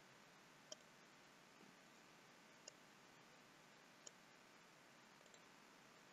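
Near silence broken by a few faint computer mouse clicks, about three spaced a second or two apart, with softer ticks near the end.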